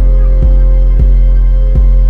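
Background music: a sustained deep bass note and held tones, with a soft beat roughly every half second to second.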